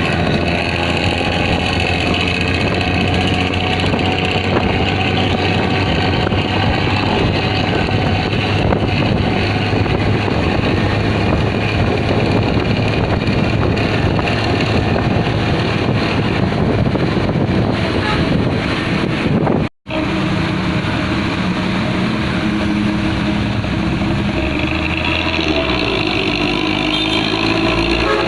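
Vehicle exhaust running with a steady, snoring rumble. The sound drops out for a split second about two-thirds of the way through, then comes back with clearer, steadier low tones.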